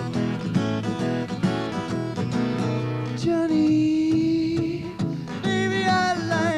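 Live acoustic blues instrumental break: quick, dense fingerpicked acoustic guitar, giving way about halfway through to one long held note and then wavering, bending notes.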